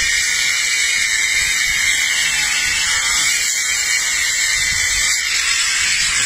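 Small electric angle grinder running at high speed, its disc cutting through a bone lodged in a dog's mouth: a steady high whine with a grinding hiss.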